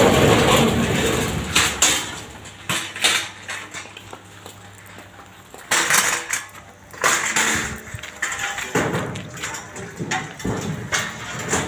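Metal two-wheeled hand truck rattling and clanking as it is wheeled empty over concrete, with irregular metallic knocks and clatter in several bursts as it is set against a cabinet.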